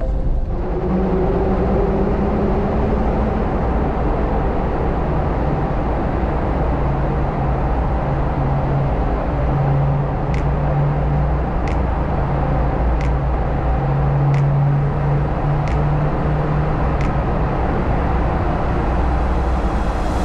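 Jeep Wrangler JL driving, a steady drone of engine and road noise whose low tones shift in pitch. About halfway through there is a run of six light ticks, roughly one every second and a quarter.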